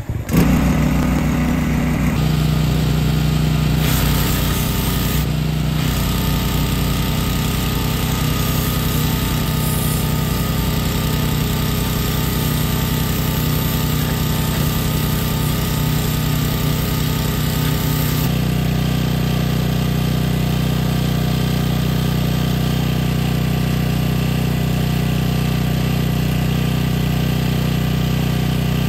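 Small gasoline engine of a pressure washer catching on a pull of the recoil starter and running steadily at a constant speed. The hiss of the high-pressure water jet is heard through the middle part.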